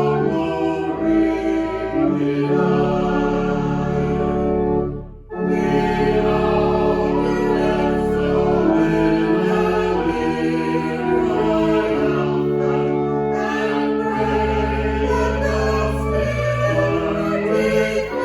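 Choral church music: a choir singing sustained chords over a low bass line, with a brief break about five seconds in.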